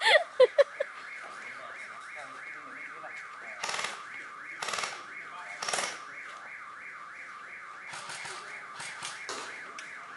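Electronic siren warbling up and down about three times a second. Three short noisy bursts cut through it about a second apart midway, with a few more near the end.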